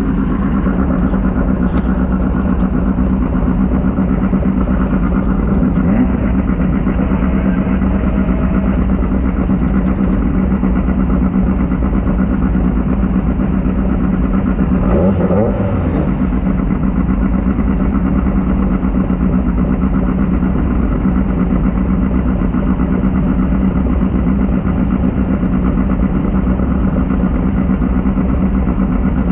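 Off-road race car engine running at a steady pitch, heard from inside the car, with a short wavering tone about halfway through.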